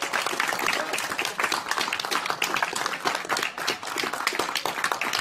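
A group of people applauding: a dense, steady stream of clapping.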